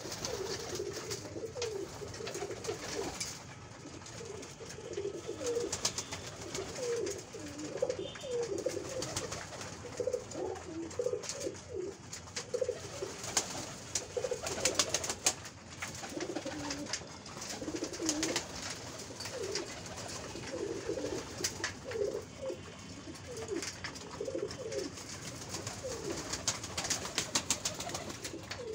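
A flock of Giribaz pigeons cooing, with many short low coos overlapping throughout. Runs of sharp clicks come from beaks pecking grain in a wooden feeding trough.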